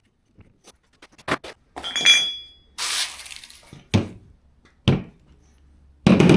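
Metal hand tools and hardware clinking and knocking. There is a short ringing clink about two seconds in, a rattle just after, and then a few separate knocks.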